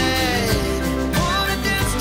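Background pop music with a singing voice over a steady bass line.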